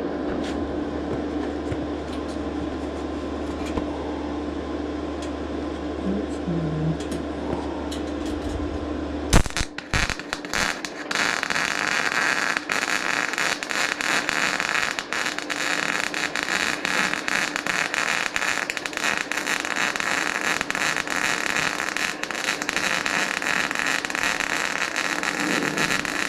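A steady low hum, then about nine seconds in a wire-feed MIG welder's arc strikes with a sharp crack and sputters before settling from about eleven seconds into a steady, dense crackle as it welds sheet steel.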